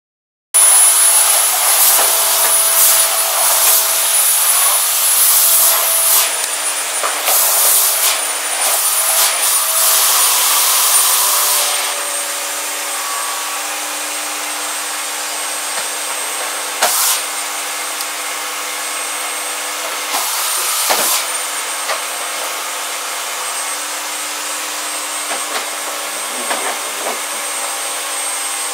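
Steady electric motor noise with a faint high whine. It is louder for the first twelve seconds or so, with short bursts of hissing over it, then settles to a lower, even running sound.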